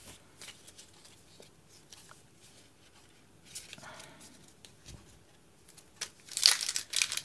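Pokémon trading cards handled quietly, with faint ticks and light rustles as the stack is sorted. Then, about six seconds in, a foil booster pack wrapper crinkles and tears loudly as it is gripped and opened.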